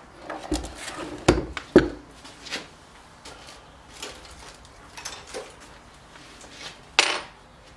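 Knocks and thuds of a metal throttle body being handled on a wooden workbench, with three heavier thumps in the first two seconds and lighter taps after. One sharp clatter comes about seven seconds in.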